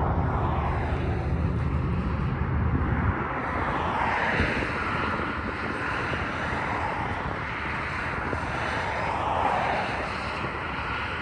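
Freight train passing: a diesel locomotive's engine rumble that drops away about three seconds in, followed by a steady rushing noise of rolling cars.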